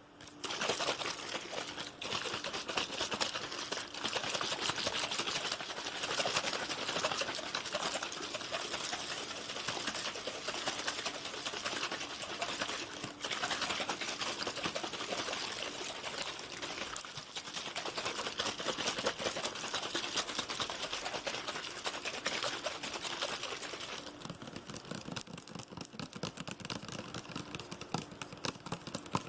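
Fast, aggressive ASMR tapping close to the microphone: a dense, continuous run of very rapid taps that thins near the end into separate quick taps.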